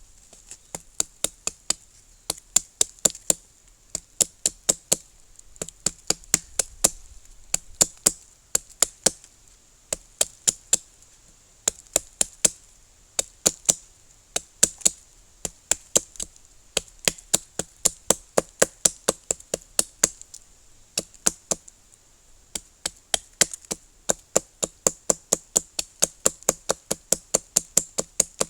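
Small axe chopping wood: sharp strikes at about three a second, in runs of several blows with short pauses between them.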